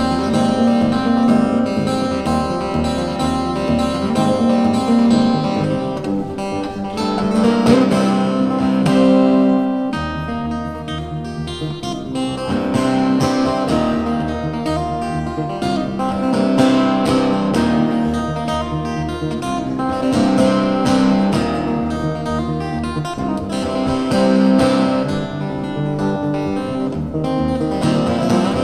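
Solo acoustic guitar played fingerstyle: a continuous flow of plucked melody notes over changing bass notes.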